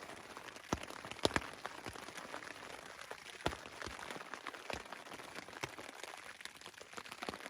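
Steady rain falling, with a few heavier drops landing as sharp single taps, several of them in the first second or two.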